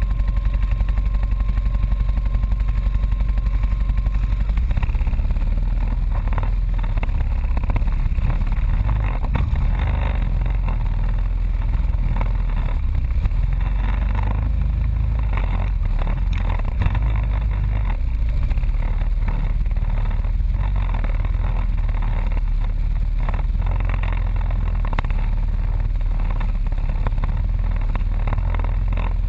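ATV engine running while the vehicle crawls over a rough, muddy forest trail, with knocks and rattles from the bumps throughout. A faint steady whine sits under the engine for the first few seconds.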